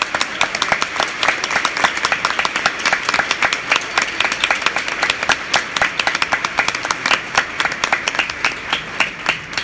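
Audience applauding, with many sharp claps from hands close by standing out over the steady clapping of the crowd.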